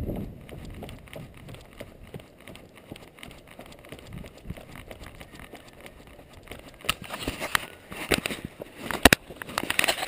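Running footsteps on a dirt and gravel trail, sped up into a quick, uneven run of crunches and clicks. They grow louder and denser in the second half, with one sharp loud crunch near the end.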